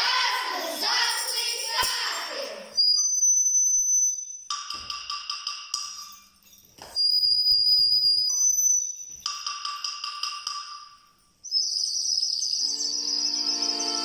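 Children's voices chanting together, then high whistled bird-like chirping in four phrases with short pauses. About eleven seconds in, music with held notes starts under a steady high chirping.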